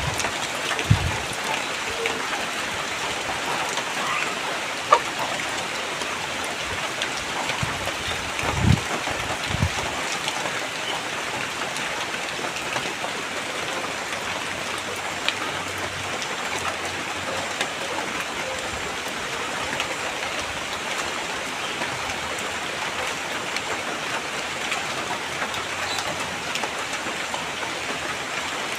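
Steady rain falling on surfaces, an even patter with scattered drops. There are a few brief low thumps in the first ten seconds.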